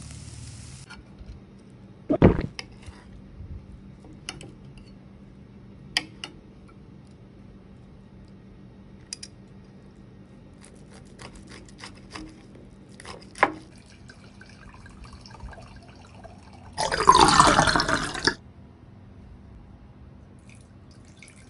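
A few scattered knocks and light clicks, then red wine pouring from a bottle into a wine glass for about a second and a half near the end.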